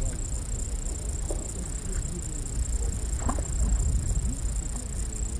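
Wind rumbling on the microphone, with a steady high-pitched hiss and a few faint ticks.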